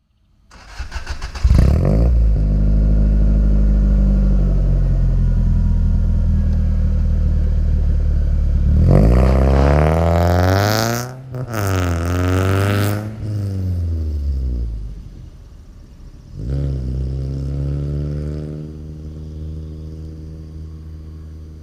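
Toyota AE86's swapped-in 3S-GE BEAMS four-cylinder engine cranking on the starter for about a second, then catching and running at a fast idle. It is revved up and let fall back around the middle, and revved once more near the end before dropping back to idle.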